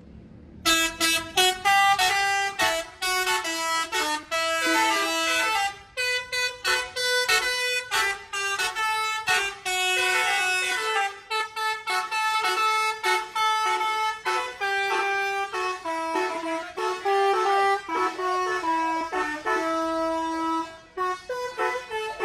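Bus telolet horns, multi-trumpet air horns playing quick tunes back and forth. The notes jump up and down in short bursts, sometimes several pitches sounding together. They start about a second in and keep going with only brief gaps.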